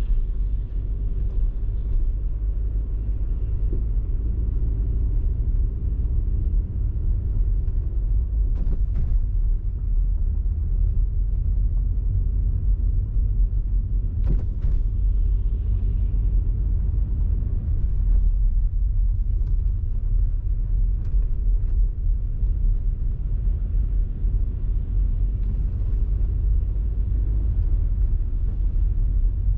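A car driving, with a steady low rumble of engine and road noise. A few faint clicks come partway through.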